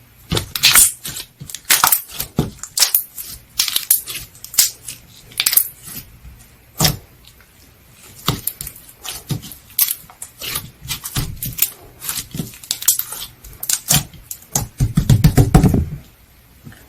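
Cream-ice slime being pressed and played with by hand, giving an irregular run of sharp pops and clicks, with a denser cluster of pops near the end.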